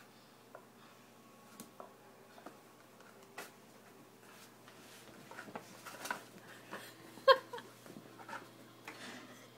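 A Havanese puppy playing with and tearing toilet paper on a wooden floor: light clicks and rustles of paper and claws, getting busier over the second half. There is one short, loud yip about seven seconds in.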